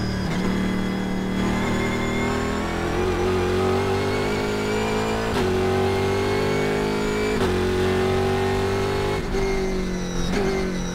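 Pratt & Miller Cadillac CTS-V-R race car engine heard from inside the cockpit, accelerating hard at full throttle from about 70 to 120 mph. The note climbs steadily through each gear and drops sharply at upshifts about five and seven and a half seconds in.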